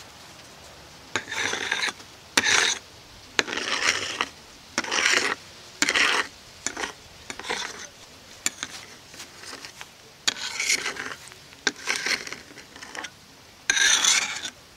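A plastic spreader scraping and rasping across solar panel glass in about a dozen short strokes, spreading a thick coat of polyurethane.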